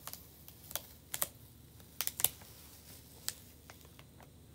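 Scattered light clicks and crackles, about seven of them at uneven spacing, from a thin plastic adhesive silkscreen transfer being peeled up off its surface.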